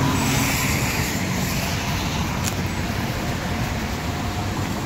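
Steady roar of traffic on a busy multi-lane highway close by, an even wash of tyre and engine noise.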